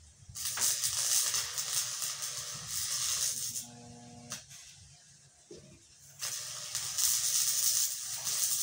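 Electric arc welding on a loader bucket tooth, a crackling hiss in two runs with a pause of a couple of seconds in the middle.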